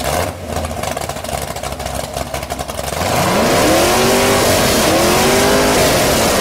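Car engine running with a rough, pulsing rumble, then revving hard: its pitch climbs about three seconds in, dips, and climbs again.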